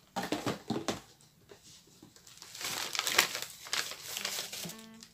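Plastic packaging rustling and crinkling in two stretches as hands rummage through a bag of empties, longer and louder in the second half.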